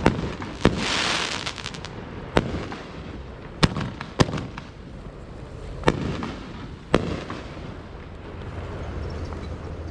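Fireworks going off: six sharp bangs at uneven intervals, with a short hissing crackle about a second in.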